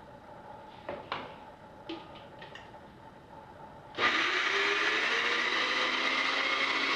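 A few light knocks, then about four seconds in a countertop blender starts and runs, grinding grated Gruyère cheese, with its motor pitch rising slightly as it gets up to speed.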